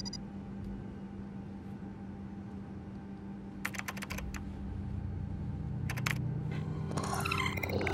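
Spaceship cockpit computer sound effects over a steady low hum. Short bursts of rapid electronic clicking come about four and six seconds in, and a run of warbling computer chirps follows near the end as a deeper drone swells.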